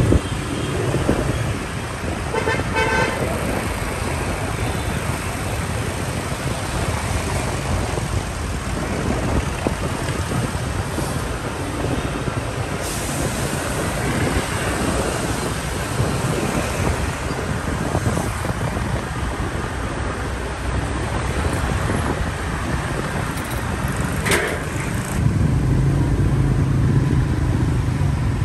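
Busy road traffic noise, with a short horn toot about three seconds in; the noise gets louder and heavier about 25 seconds in.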